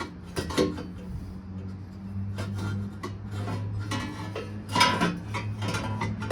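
Stainless steel long-tube exhaust headers clanking and scraping against the engine and chassis as they are maneuvered into a tight engine bay: a string of irregular metallic knocks and rubs, loudest about five seconds in. A steady low hum runs underneath.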